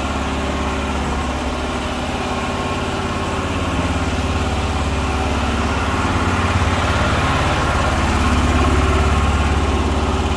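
A small engine running steadily, growing a little louder in the second half.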